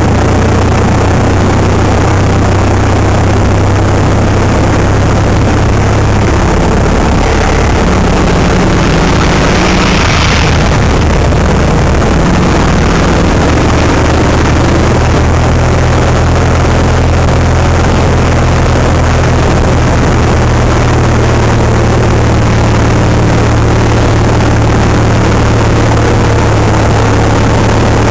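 Motorcycle engine running steadily while riding at road speed, a low drone whose note shifts a few times. Wind hiss over the microphone, with a stronger gust about ten seconds in.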